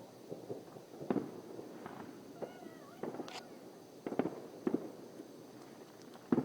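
Fireworks going off: a string of about seven sharp pops and bangs at irregular intervals.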